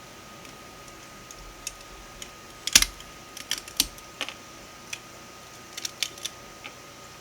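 Irregular sharp clicks and small cracks of 3D-printed plastic support material being pried and snapped away from a printed ratchet. The loudest cluster comes about three seconds in, followed by scattered single clicks.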